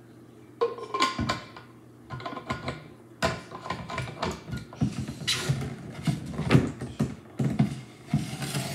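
Stainless-steel screw cap being twisted back onto a glass water bottle and the bottle handled: a busy run of sharp clicks, clinks and scrapes starting about half a second in.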